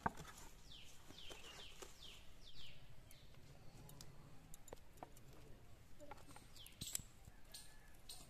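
A bird chirping: a run of about six quick downward-sliding notes between one and three seconds in, and a couple more near the end. Under it are faint small clicks and rustles of wet duck feathers being pulled out by hand in a plastic basin. A single sharp knock right at the start.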